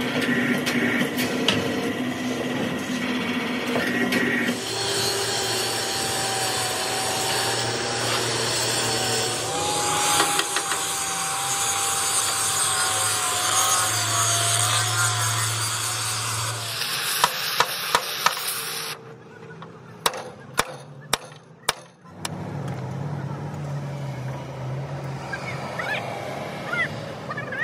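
Angle grinder grinding along a steel truck-frame channel: a harsh grinding hiss with a wavering whine that lasts about twelve seconds. A steady machine hum comes before it. After it come several sharp metal knocks and then a low hum.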